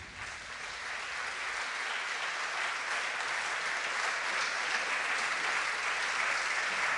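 Audience applauding, swelling over the first second or two and then holding steady.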